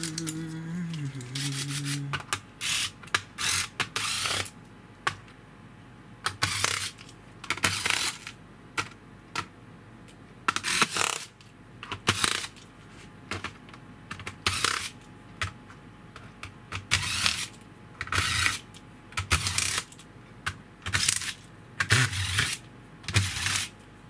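Corded electric screwdriver backing screws out of the plastic base of a Dell Inspiron N5110 laptop, with the screws handled and dropped as they come free. The clicking, rattling bursts are short and come every second or so.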